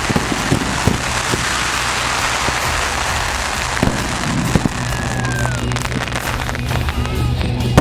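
Fireworks finale: a dense, continuous crackle of bursting crackling stars with scattered sharp bangs from shells. From about five seconds in, whistles glide down in pitch over the crackle.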